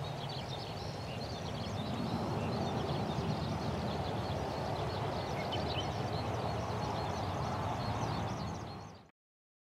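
Airbus A330-300's Rolls-Royce Trent 700 jet engines rumbling steadily as the airliner rolls out on the runway after landing; the rumble swells about two seconds in. Birds chirp throughout, and everything cuts off suddenly near the end.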